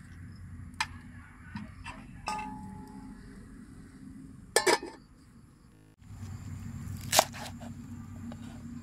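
A few metal clinks and a short ringing clang at a metal cooking pot, with a clatter a little before the middle, over a steady low rumble. About six seconds in the sound changes and a cleaver knocks down hard once on a wooden chopping board, cutting culantro stems.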